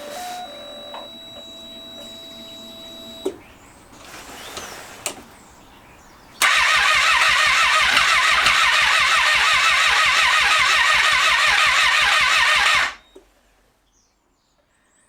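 A faint steady whine and a few clicks in the first three seconds. Then, about six seconds in, the starter motor cranks the 2012 Triumph Street Triple 675R's three-cylinder engine steadily for about six and a half seconds and stops. The engine does not fire: it is a no-start.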